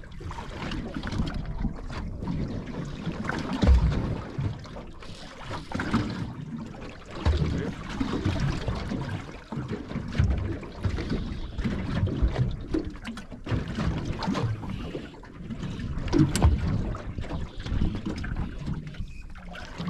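Wind buffeting the microphone over water slapping and splashing against the hull of a small boat on choppy sea, with irregular low thuds.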